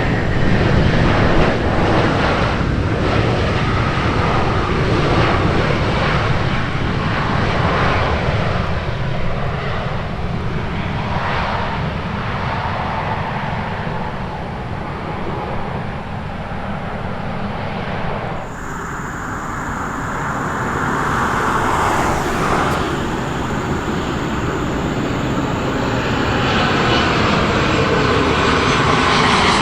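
Airliner's engines running loud as an aircraft passes close by, a steady rumble with a whine, the pitch gliding down near the end.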